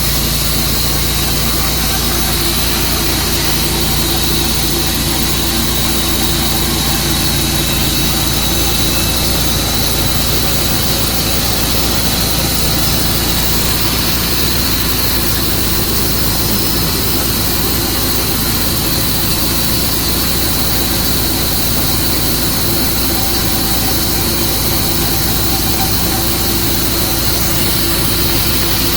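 A Tru-Cut sawmill running with a steady, loud engine sound and a thin high whine over it.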